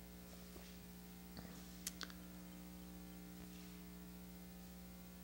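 Near silence: room tone with a steady low hum, and a few faint clicks about one and a half to two seconds in.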